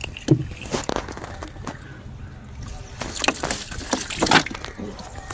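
Irregular knocks, clatter and water sloshing in a small wooden fishing boat, with the loudest knocks about half a second in and again around three to four seconds in.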